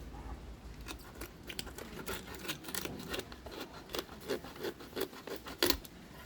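A knife cutting through fish in a run of quick, sharp strokes, about two to three a second, with the loudest stroke near the end.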